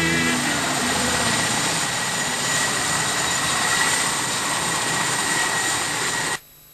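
A loud, steady rushing noise with a faint high whine. It cuts off abruptly about six seconds in.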